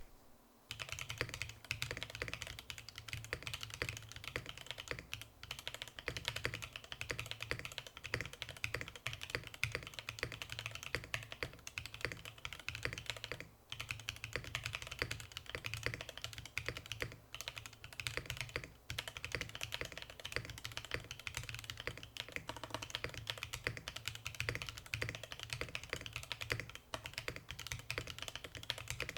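Fast, continuous typing on a custom Bias v2 mechanical keyboard with an aluminium plate and lubed Haimu x Geon Black switches, a dense run of keystrokes with a brief pause about halfway through.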